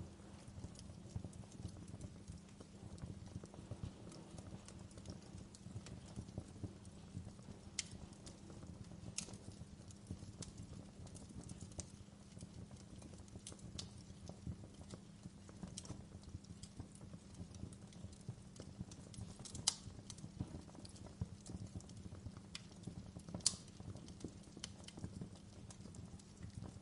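Wood fire crackling in a fireplace: a low steady rumble of flames with irregular small pops and snaps, a few sharper pops standing out about two-thirds of the way through.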